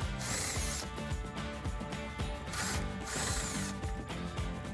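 Cordless power driver spinning a socket to back out the 10 mm grille bolts, in two short whirring bursts, over background music with a steady beat.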